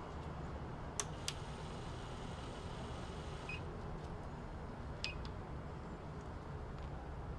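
Safescan banknote counter being set up: a couple of sharp clicks, then two short electronic beeps a second or so apart as its display resets to zero, over a low steady hum.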